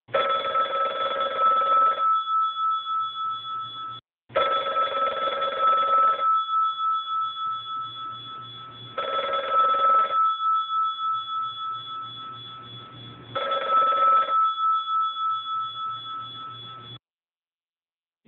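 A telephone ringing four times, about four and a half seconds apart; each ring is a fast, fluttering warble about two seconds long that then fades.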